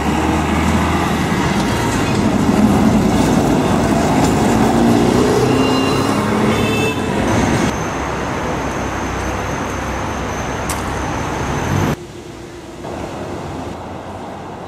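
City street traffic noise, loudest in the first half with a bus engine running close by and brief high squeals about six seconds in. The noise drops suddenly to a quieter traffic hum about twelve seconds in.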